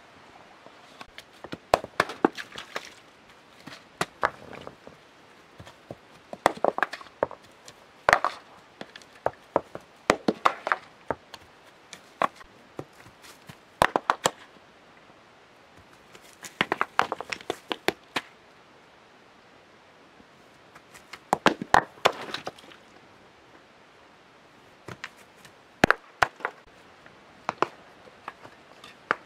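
Stones knocking and clacking against one another as they are picked up and set in place by hand, in clusters of sharp clicks every few seconds, with a pause of a few seconds past the middle.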